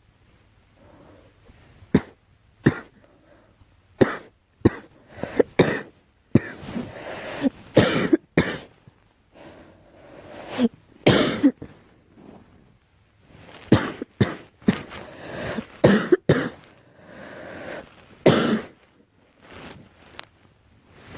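A girl coughing over and over: a few single sharp coughs at first, then bouts of several coughs in quick succession, with short pauses between bouts.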